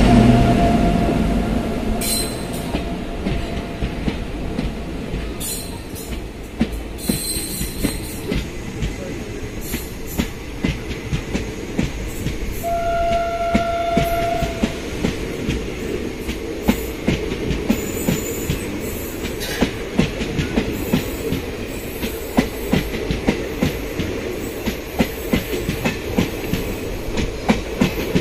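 Coaches of an express train rushing past at speed: a steady rumble with a run of regular clicks from the wheels crossing rail joints, loudest in the first second or two. About halfway through a train horn sounds briefly, a single steady note.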